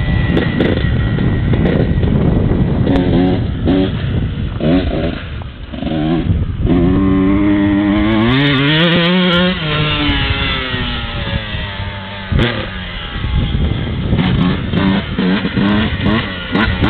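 Kawasaki KX125 two-stroke single-cylinder motocross bike being ridden hard, its engine pitch repeatedly climbing and dropping as it revs and shifts, with one long rise and fall about seven to ten seconds in.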